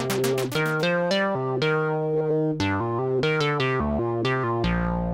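Erica Synths Polivoks-style DIY modular synthesizer playing a melodic line of short pitched notes, each bright at its start and quickly dulling. A low held bass note joins about four and a half seconds in.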